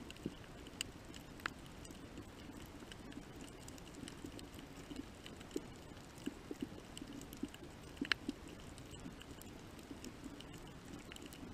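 Underwater reef ambience: irregular sharp clicks and short pops over a faint steady low rumble, with a small cluster of louder clicks about eight seconds in.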